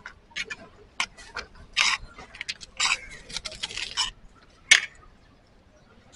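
Metal spoon scraping and clinking against a large aluminium serving tray as spiced chickpeas are scooped onto a plate: a run of short scrapes and clicks, with a sharper knock a little under five seconds in, then it goes quieter.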